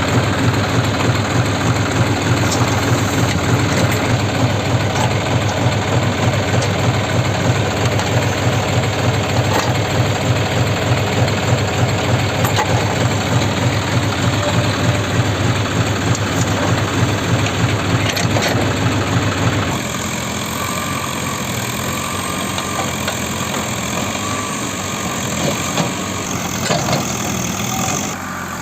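Diesel engine of heavy farm machinery running steadily with a deep drone. About two-thirds of the way through, the deep drone drops away and a quieter engine sound carries on.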